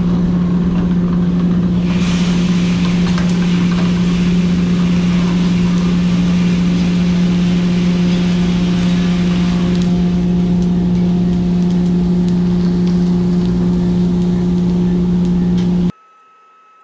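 Drum coffee roaster and cooling tray running with a loud, steady motor hum. About two seconds in, a rushing rattle of freshly roasted beans pouring out of the drum into the cooling tray, stirred by its rotating arms, comes in; it eases around ten seconds in, and all sound cuts off abruptly near the end.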